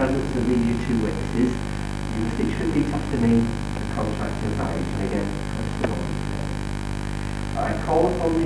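Quiet, indistinct speech in a small room over a steady electrical hum, with one brief click about six seconds in.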